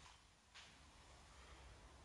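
Near silence: room tone, with one faint, brief rustle about half a second in.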